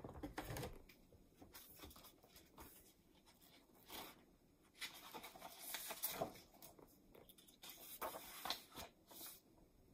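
Faint rustling of a picture book's paper pages as it is opened and its pages are turned, in several short bursts.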